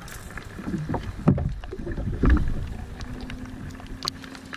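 Small boat afloat, with low rumbling buffets and a few knocks and clicks of handling aboard, and a steady low hum coming in about three seconds in.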